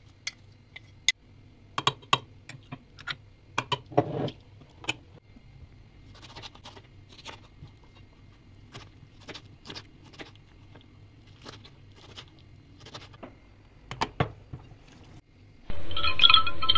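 Kitchen utensil sounds: clicks, knocks and scraping as chopped leek is pushed off a plate into a pot, then a knife tapping on a cutting board as tomatoes are cut, in a loose run of sharp taps. Near the end, loud chiming music cuts in.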